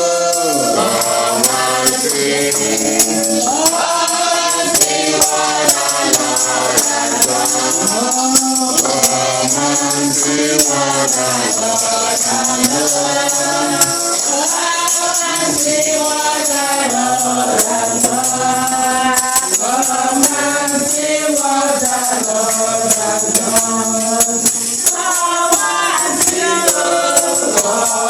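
A choir singing a church song, with a tambourine keeping the beat.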